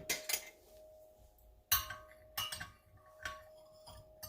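A metal spoon clinking against a cup a handful of times at irregular intervals, as honey is stirred into the ginger tea. A faint steady hum runs underneath.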